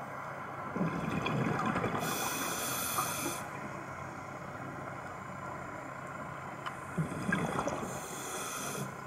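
Scuba regulator breathing underwater: two breaths, each a bubbling rush followed by a hiss.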